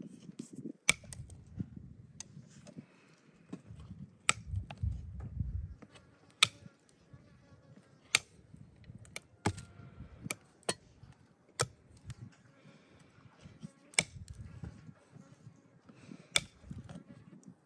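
Horse hoof being trimmed with hoof nippers: about a dozen sharp snaps at irregular intervals as pieces of overgrown hoof wall are cut off, with low handling noise in between.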